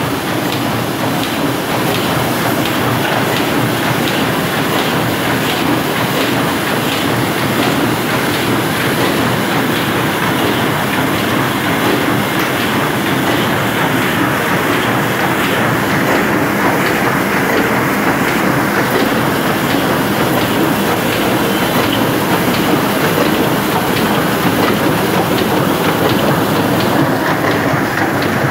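Heidelberg 28×40 sheet-fed offset printing press running at speed while printing: a loud, steady, rapid mechanical clatter.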